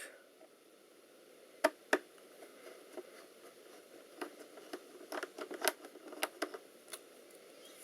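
Screwdriver backing a small screw out of a laptop's panel: two sharp clicks about two seconds in, then a run of light clicks and ticks from about four seconds on.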